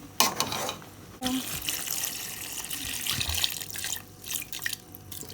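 A few sharp knocks of a cooking pot, then a steady hiss of liquid with fine crackling: goat meat pepper soup bubbling in the pot.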